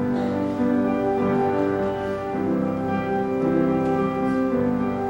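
Instrumental accompaniment on keyboard starts suddenly, playing long held chords.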